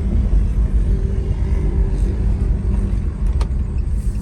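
Chevrolet Cruze 1.8 four-cylinder car on a test drive after a transmission repair, its engine and road noise making a steady low rumble. A single short click comes about three and a half seconds in.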